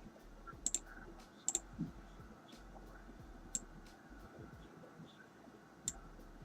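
Sharp computer mouse clicks, spaced a second or two apart: a couple of quick double clicks, then single clicks.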